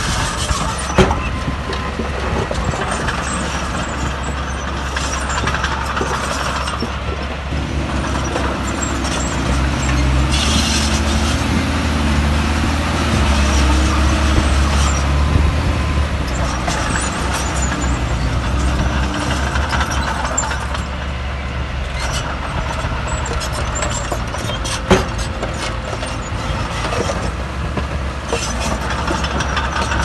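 Heavy diesel earthmoving machinery running with a steady low rumble that swells between about ten and sixteen seconds in. A short hiss comes about ten seconds in, and a few sharp knocks stand out, the clearest near the start and about twenty-five seconds in.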